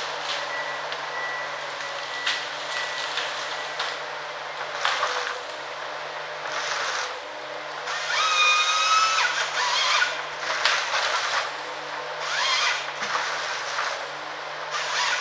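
Ponsse Ergo forest harvester working: its diesel engine runs steadily under repeated bursts of hydraulic and cutting noise, with a high whine lasting about a second and a half roughly eight seconds in.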